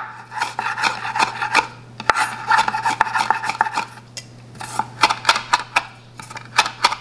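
Chef's knife chopping fresh rosemary leaves on a wooden cutting board: a fast, uneven run of sharp taps as the blade strikes the board, with the blade scraping through the leaves between strikes and a brief pause about four seconds in.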